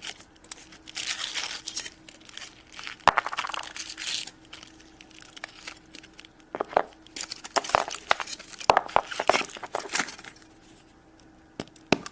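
Foil wrapper of a Kinder Surprise chocolate egg being torn and crinkled open by hand. It is followed by several sharp clicks and crackles as the egg and the plastic toy capsule inside are opened.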